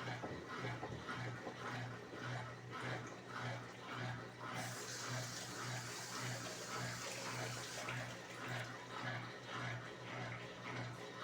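Brastemp Clean 7 kg top-loading washing machine in its rinse cycle, the drum turning slowly as it ramps up toward spin speed: a low motor hum pulsing about twice a second with water sloshing. A hiss joins in for about three seconds near the middle.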